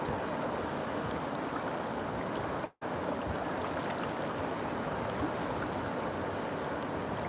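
River water flowing in a steady rush. The sound cuts out completely for a split second a little under three seconds in, then resumes unchanged.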